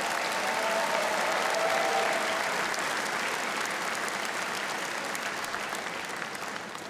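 Large audience applauding, swelling at first and then slowly dying away.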